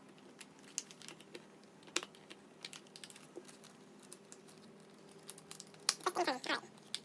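Irregular small clicks and taps of plastic and metal as a car's cigarette-lighter socket is wiggled and pried loose from its plastic console trim. A brief voice sound comes about six seconds in.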